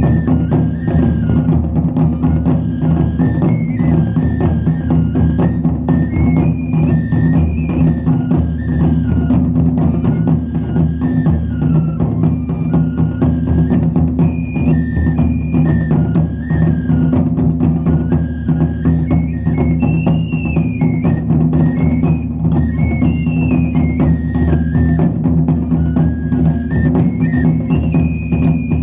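Japanese taiko drums played in a fast, continuous rhythm, with a shinobue bamboo flute playing a melody over the drumming.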